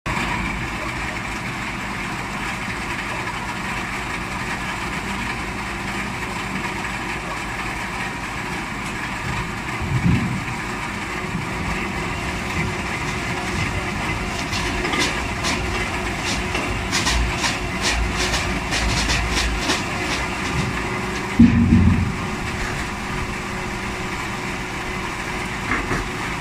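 Hydraulic log debarker running and stripping bark from a log. It makes a steady machine noise, with rattling and clattering for several seconds in the middle and two heavy thumps, about ten and about twenty-one seconds in.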